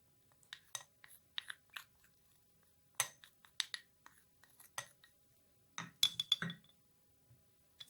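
Stirring spices into sliced lemon and ginger in a glass jar: irregular clinks and scrapes of the utensil against the glass and the fruit, with a brief ringing clink about six seconds in.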